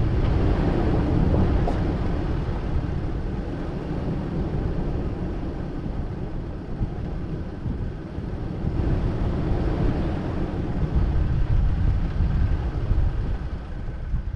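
Low rumble and road noise of a vehicle driving along a dirt road, probably mixed with wind on the microphone. It eases off about a third of the way in, grows louder again past the middle and fades near the end.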